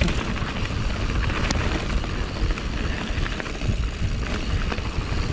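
Wind rushing over the on-bike camera microphone and mountain bike tyres rolling fast over a loose gravel trail, with scattered clicks and rattles from the bike.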